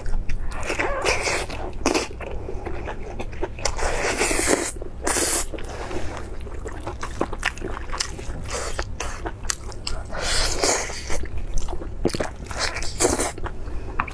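Close-miked chewing and biting of roast lamb leg meat: irregular wet, squishy mouth sounds with small clicks, and a few louder swells of noise as meat is torn from the bone by hand.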